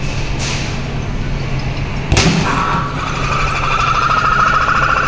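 A punch hits the hanging bag of a Dragon Punch boxing arcade machine with a loud thud about two seconds in. The machine then plays an electronic ticking tone that rises slowly in pitch while its score counts up.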